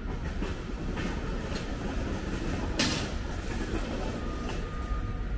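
Low, steady rumble of road traffic, with a single sharp click or knock about halfway through.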